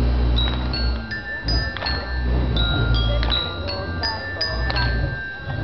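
A music-box melody of high, bell-like notes, played slowly one after another and left to ring, accompanying the float's slow 'orgol' turn, over a steady low rumble.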